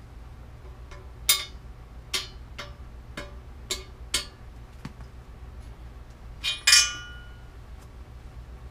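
Bearing cup being tapped into a steel bicycle frame by hand with a metal tool instead of a press: a run of about six sharp, ringing metallic taps roughly half a second apart, then a louder ringing clang of metal a little before the end.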